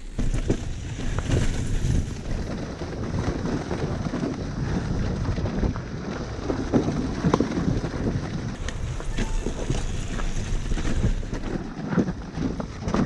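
Dirt bike engine running while riding a rough forest trail, mixed with wind buffeting the helmet-camera microphone and frequent knocks and rattles from the bumpy ground. It cuts off suddenly at the end.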